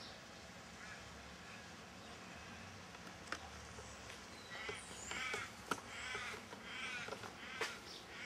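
A crow-like bird cawing: a run of about five short, harsh calls starting a little past halfway, with a few sharp clicks in among them.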